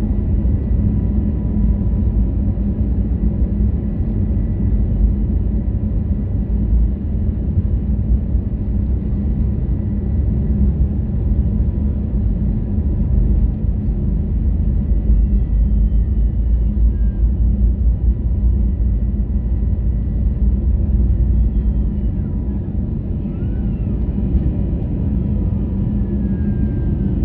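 Airliner engines at takeoff power, heard inside the cabin: a loud, steady, deep rumble of engine and airflow noise as the plane rolls down the runway and climbs away. A faint steady whine sits over it for the first ten seconds or so.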